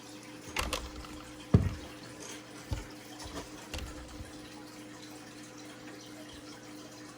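A few light knocks and clicks from handling small objects, the loudest about one and a half seconds in, over a steady low electrical hum.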